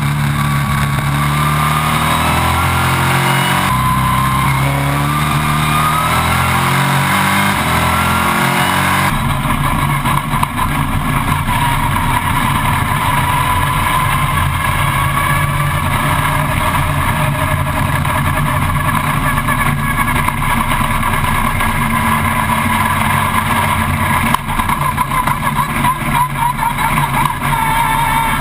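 Stock car race car's engine running at low revs, its note wavering up and down. About nine seconds in the sound changes abruptly to a rougher, noisier rumble that carries on steadily.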